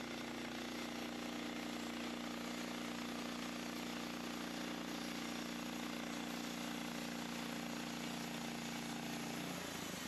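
Portable band sawmill's engine running steadily, then its steady tone drops away near the end as the mill is shut down.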